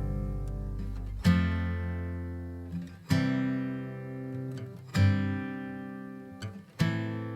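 Background music: acoustic guitar chords strummed about every two seconds, each left to ring out and fade.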